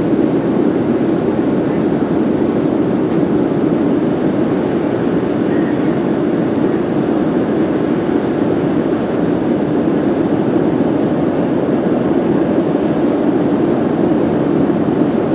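Steady jet engine and airflow noise of a Southwest Airlines Boeing 737 in flight, heard from inside the passenger cabin: an even, unchanging low rumble.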